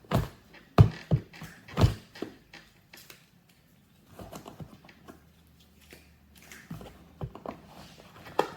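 Cardboard box being handled, with four sharp knocks in the first two seconds, then quieter scratching and picking at its tightly taped flaps.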